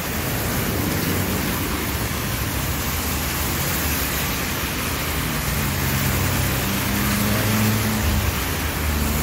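Road traffic on wet tarmac: a steady hiss of tyres on the wet road, with a vehicle engine's low hum coming in about halfway through.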